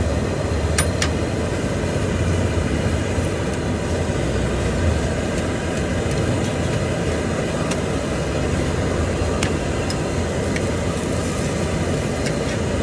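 Steady low rumble of street noise, with a few sharp clicks of a metal spatula on an iron griddle.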